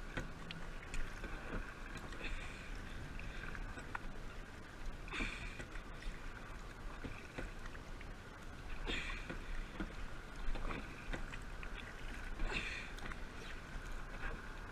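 Kayak paddle strokes splashing in the water, a swell of splashing every three to four seconds, with faint clicks in between.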